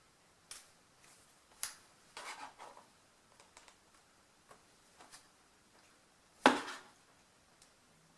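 Packaging and parts being handled: scattered light clicks, taps and rustles, with one louder knock about six and a half seconds in.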